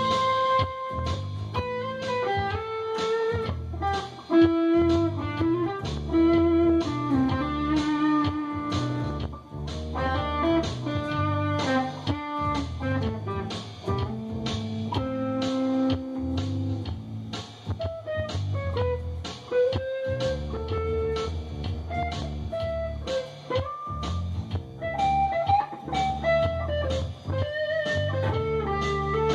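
Instrumental jam of an Ibanez S770 electric guitar through a Marshall MG100DFX amp and a Yamaha PSR-550 keyboard, playing melodic lines over a continuous bass and an even, repeating beat.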